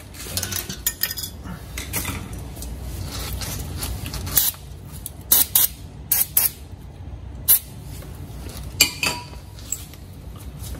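Thin metal brake pad spring clips clinking and clicking as they are handled and pressed into a caliper bracket, with a run of sharp clicks in the second half.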